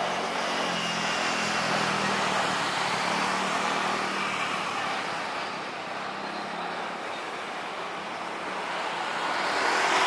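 Steady jet engine noise from an Airbus A320-200 on short final and flaring to land, dipping a little midway and growing louder near the end as it nears touchdown.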